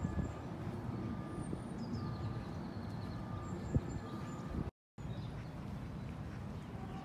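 Outdoor ambience in an open park: a low, uneven rumble of noise, with short high bird chirps now and then above it. The sound drops out completely for a split second about two-thirds of the way in.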